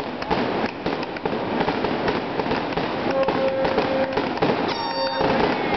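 Fireworks going off in a dense crackle of rapid pops and bangs.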